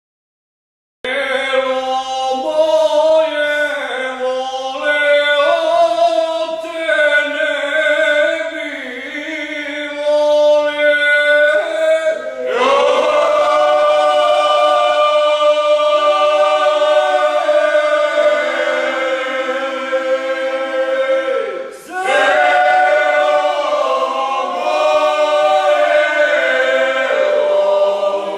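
A men's folk group singing a bečarac unaccompanied, several voices together in harmony with long held notes. The singing begins about a second in and breaks briefly for a breath about three-quarters of the way through.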